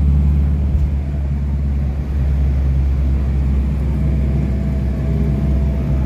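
Moving vehicle heard from inside the cabin at cruising speed: a steady low rumble of engine and road noise.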